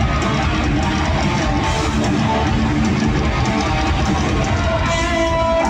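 A heavy rock band playing live through an arena sound system, with distorted electric guitars to the fore over bass and drums, loud and steady throughout.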